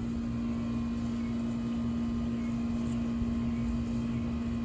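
Steady mechanical hum at one low, unchanging pitch over a low rumble.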